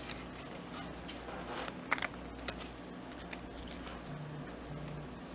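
Pokémon trading cards handled after a booster pack is opened: a few faint clicks and rustles of card stock sliding against card, over a low steady hum.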